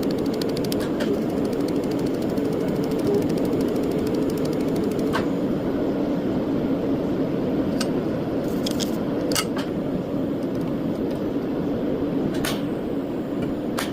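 Steady machine hum with a few sharp, irregular clicks, including a quick run of ticks near the start.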